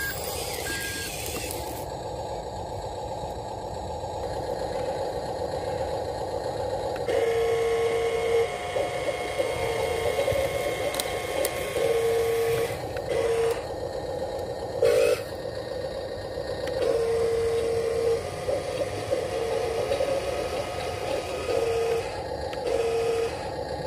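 Huina RC dump truck's small electric motors whining as it tips its bed to dump gravel, with a steadier tone cutting in and out in short spells of about a second as the tipper is worked.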